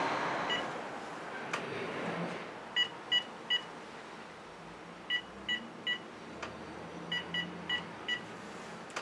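Telephone keypad beeps as a ten-digit phone number is dialed: three quick beeps, a pause, three more, a pause, then four.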